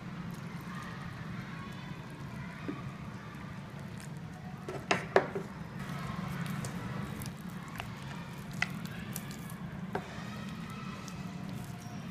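Water poured from a plastic jug onto flour in a stainless steel pot, with a couple of sharp knocks against the pot about five seconds in and a few lighter clicks later, over a steady low hum.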